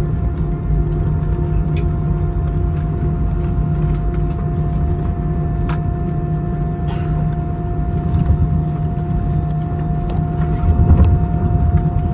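Cabin noise of an Airbus A320-family airliner rolling out on the runway after touchdown with its spoilers up: a steady rumble from the wheels and engines under a constant hum, swelling briefly near the end.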